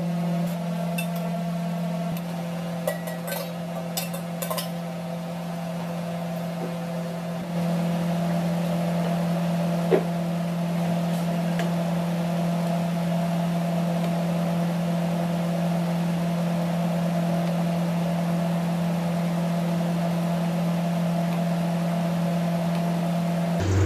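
Steady low mechanical hum that steps up louder about seven seconds in, with a few light clinks a few seconds in and a single sharp click about ten seconds in.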